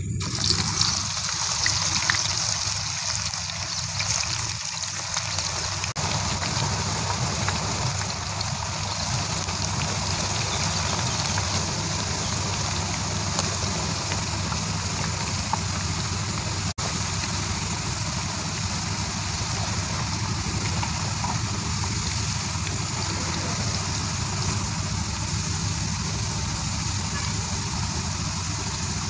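Waffle-cut potato chips deep-frying in hot oil in an iron kadai: a steady, even sizzling and bubbling.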